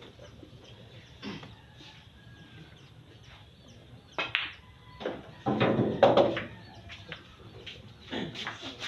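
Pool shot: the cue tip strikes the cue ball about four seconds in, then billiard balls clack together and knock about the table, with the loudest burst of knocks around six seconds.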